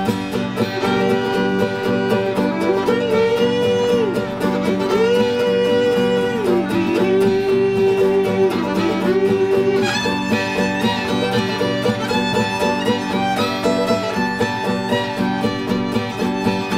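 Instrumental background music in a bluegrass style: a bowed string melody that slides between notes over a steady plucked-string accompaniment.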